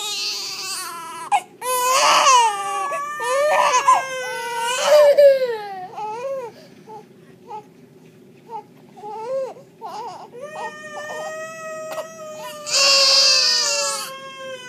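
A newborn baby crying in long, high-pitched wavering wails, several loud bursts in the first half and another near the end, with quieter broken crying from a toddler between them.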